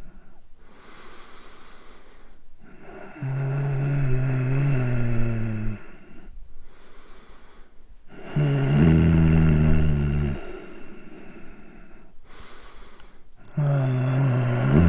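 A person snoring: three long, low, buzzing snores on the in-breath, about five seconds apart, with quieter breathing out between them.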